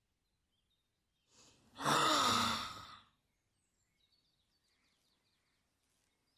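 A single vocal sigh-like sound, lasting about a second and a half and starting a little over a second in, its pitch gliding as it goes.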